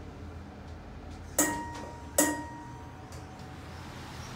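ThyssenKrupp elevator's arrival chime sounding twice, two bright dings about a second apart, as the car reaches its landing, over a low steady hum.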